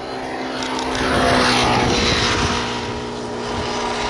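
A passing vehicle's rushing noise, swelling to a peak about a second in and easing off, with curved falling sweeps in its hiss and a steady low hum underneath.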